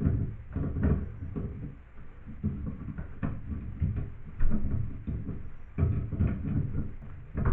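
Irregular metallic knocks, clicks and scraping of channel-lock pliers and faucet parts being handled while a bathtub tap stem is tightened back in, with louder knocks about one, three, four and a half, six and seven and a half seconds in.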